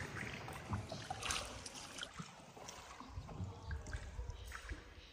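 Faint water sounds in a limestone cave: scattered small drips and trickling over a low, uneven rumble.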